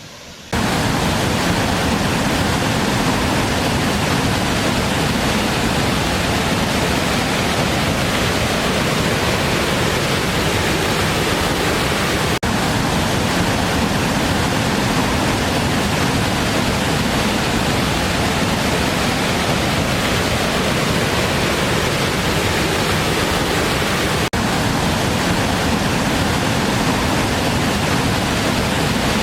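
Waterfall: a steady, dense rush of falling water that cuts in abruptly about half a second in.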